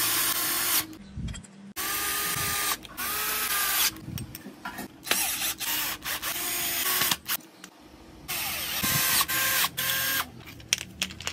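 Cordless drill driving screws into a wooden frame in several short runs. The motor whine rises as each run starts and drops as it stops, with brief pauses between.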